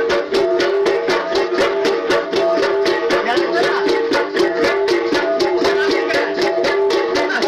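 Kalinga gangsa (flat gongs) played as an ensemble in a fast, steady rhythm of about five or six strokes a second, several gongs of different pitch ringing together.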